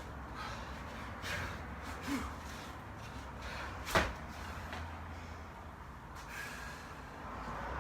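A person breathing hard from exertion, a few heavy breaths, over a steady low hum. One sharp knock sounds about four seconds in.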